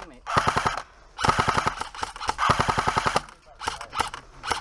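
Lancer Tactical M1918 BAR airsoft electric gun firing three short full-auto bursts of rapid, evenly spaced shots, followed by a few scattered shots near the end.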